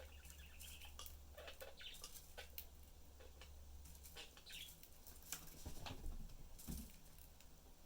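Pet budgerigars giving short, soft chirps, mixed with scattered clicks and a few louder knocks about six seconds in.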